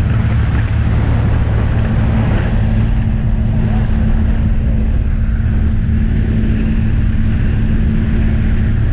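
Single-engine propeller plane's engine and propeller droning steadily, heard inside the cabin, with air rushing in through the open jump door.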